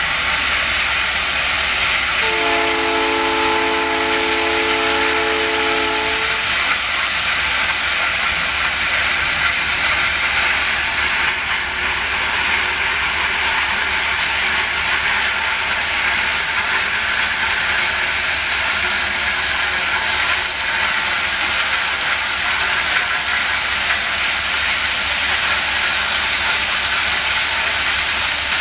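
Locomotive horn of a ballast train blowing once, a chord of several notes held for about four seconds, over the steady noise of the train running.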